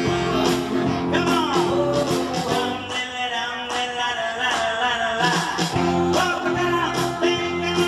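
Music with a singing voice and a steady beat, played loud over a PA system for dancing.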